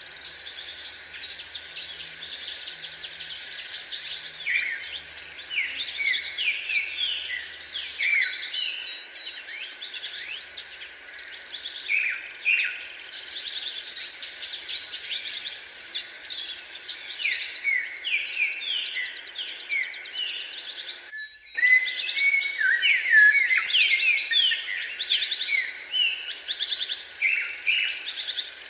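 Many birds calling at once, a dense chorus of short, overlapping high chirps and quick pitch sweeps. There is a brief break about two-thirds of the way through.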